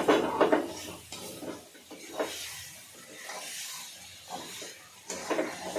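Spatula scraping and stirring chicken masala in a kadai over the gas flame, in irregular strokes over a steady sizzle, loudest in the first half-second. The masala is starting to stick to the pan.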